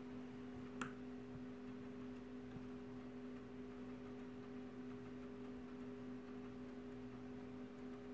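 Steady hum of running computer equipment, with faint constant tones, and one sharp click about a second in.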